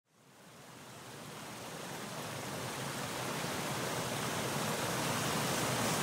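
Stream water rushing over rocks and small cascades, a steady rush that fades in from silence and keeps growing louder.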